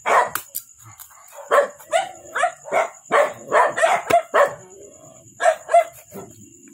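A dog barking repeatedly: about a dozen short barks in quick runs, a brief pause a little past the middle, then two more barks.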